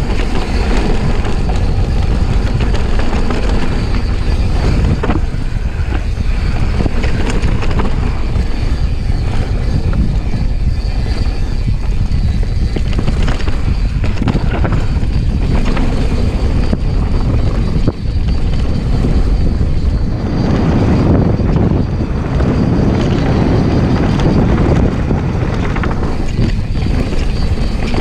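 Wind rushing over an action camera's microphone as a mountain bike descends a dirt and gravel trail. Through it come the crunch of the tyres and many short rattles and knocks from the bike over the bumps.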